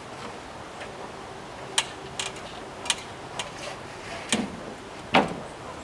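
Storm window being worked free by hand from an aluminium ladder: about six sharp clicks and knocks at irregular intervals, the loudest near the end.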